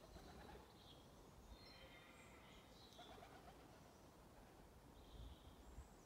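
Faint evening birdsong: small birds giving short high chirps and a brief trill, with a few lower repeated notes about three seconds in, over a faint low background rumble.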